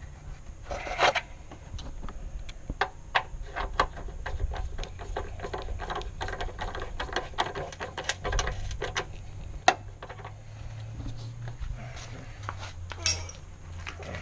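Irregular clicks, knocks and clinks of plastic and metal parts being handled as a car's air intake duct and air box are fitted back in the engine bay, with a few sharper knocks standing out.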